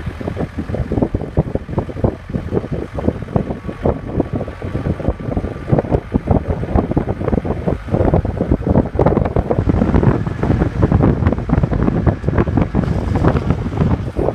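Wind buffeting the microphone: a loud, irregular rumble that gets heavier about halfway through.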